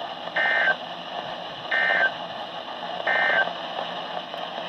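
Emergency Alert System end-of-message data bursts: three short, buzzy two-tone digital chirps, about a second and a half apart, over steady radio hiss, marking the end of the alert.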